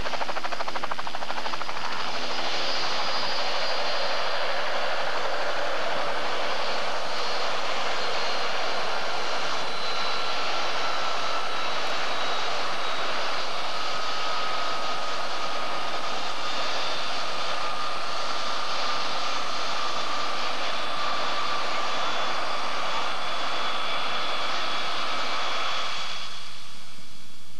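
Light turbine helicopter of the Bell 206 JetRanger type running on the ground: a steady turbine whine over a dense rush of engine and rotor noise. Near the end the whine and the upper rush cut off abruptly, leaving a duller hiss.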